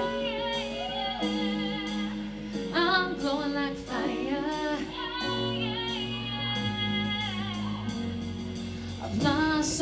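Live band playing a song's slow intro: held keyboard chords, with bass notes joining about halfway through, and a woman's wordless vocal lines over them before the first verse.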